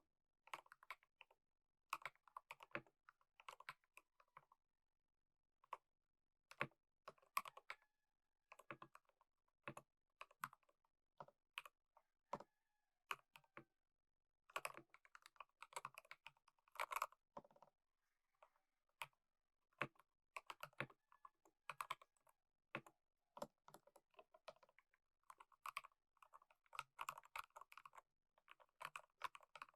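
Typing on a Redragon K530 Draconic 60% mechanical keyboard with PBT XDA-style keycaps: irregular runs of keystroke clicks and clacks, with brief pauses about five seconds in and again near eighteen seconds.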